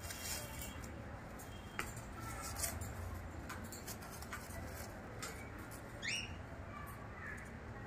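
Faint chirps and squeaks from caged birds, with a couple of light clicks and one quick rising squeak about six seconds in, over a low steady rumble.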